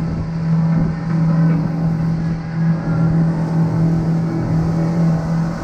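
A motorboat's engine running steadily at cruising speed, a constant low drone, with water and wind rushing past the moving hull.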